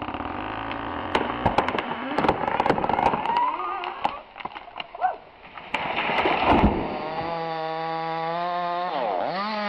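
Chainsaw felling work: a saw running among sharp cracks and snaps of splitting wood, with a loud burst of noise about six seconds in. Over the last two seconds a chainsaw runs at a steady pitch, dipping and rising once near the end.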